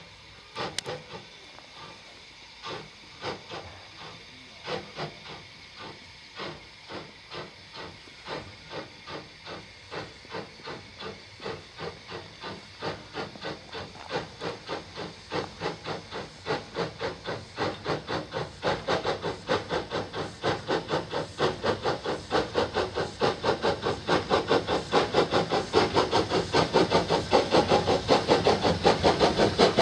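Peckett 0-4-0 saddle-tank steam locomotive's exhaust beats, chuffing while hauling wagons. The beats start slow and far apart, then quicken and grow steadily louder as the engine approaches.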